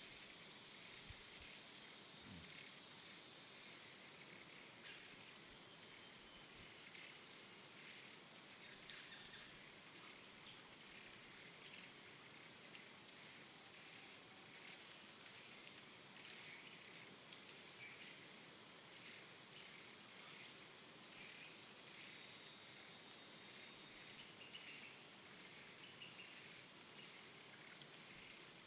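Faint steady hiss with a continuous high-pitched whine and scattered faint ticks.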